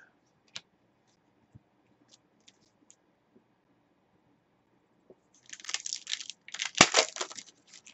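Foil trading-card pack being torn open, with crinkling of the wrapper starting about five seconds in. A few faint clicks of cards being handled come before it.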